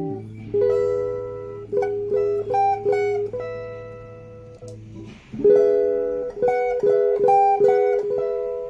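Electric guitar played through a Maxon CP-101 compressor pedal: a low note held under single picked notes, then a chord struck about five seconds in and followed by more picked notes, each note ringing out long.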